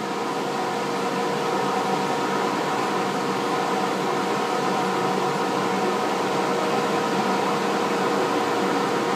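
Grizzly shop dust collector running steadily, a rushing air noise with several steady hum tones, while the CNC router's gantry motors drive the head across its rails.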